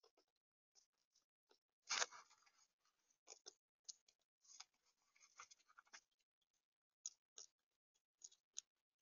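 Squirrel at close range cracking and chewing sunflower seeds and rummaging in the feeder's seed tray: irregular small crunches and clicks. There is a louder crackle with a knock about two seconds in.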